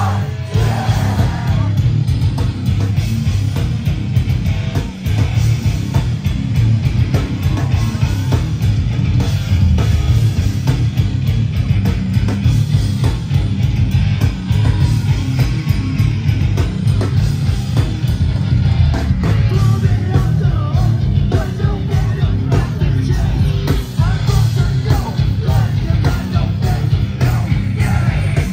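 Hardcore punk band playing live and loud: heavily distorted guitars and bass over fast drums, with a vocalist yelling over the top. The recording is dominated by a heavy low end.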